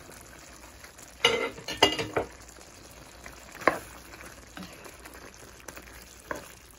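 Pork afritada with green peas simmering in tomato sauce in a pan, while a spatula stirs and scrapes through it. A burst of clattering knocks against the pan comes about a second in, one sharp knock near the middle, and a couple of lighter ones later.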